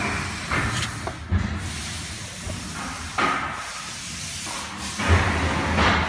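Side-channel ring blower, the vacuum pump of a CNC router, running with a steady airy hiss. A few dull knocks from handling come through over it.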